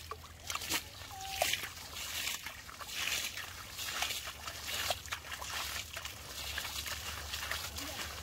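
Water being bailed by hand from a shallow muddy pool with a basin. It makes a run of irregular sloshes and splashes as the basin scoops and the water is thrown out onto the bank, about one every second or so.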